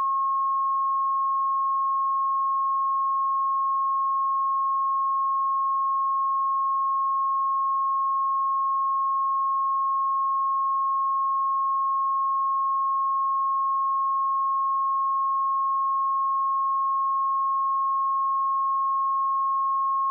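Steady 1083 Hz sine-wave test tone: one pure, unchanging pitch at constant level.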